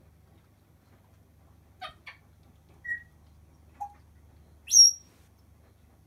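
African grey parrots calling: two short clicks about two seconds in, a couple of brief single-note whistles, then a loud, steeply rising whistle near the end, the loudest sound.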